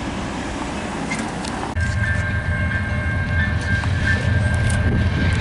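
Road traffic noise, then, after a sudden change about two seconds in, the diesel engine of an approaching CN freight locomotive: a deep steady rumble with a steady high tone held over it.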